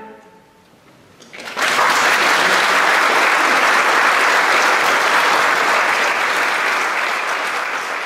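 The choir's final chord cuts off into a brief lull, then the audience applauds, starting about a second and a half in and running steadily before easing off slightly near the end.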